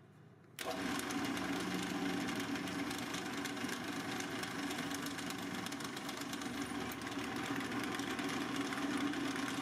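Drill press running, its twist bit boring down through a cast aluminium part: a steady motor hum with a fine cutting hiss, starting suddenly about half a second in.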